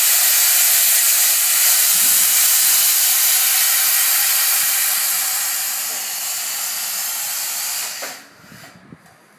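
Loud, steady hiss of compressed air escaping from an air jack as it lowers a pickup truck's raised rear end. The hiss cuts off about eight seconds in, once the truck is down.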